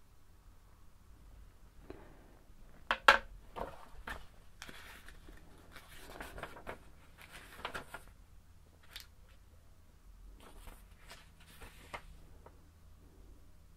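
Handling noise close to binaural microphones: scattered clicks and crunchy rustling, the loudest a pair of sharp clicks about three seconds in. The crunchy rustling is a hat rubbing against the microphones; the clicks come from small devices being handled and their buttons pressed.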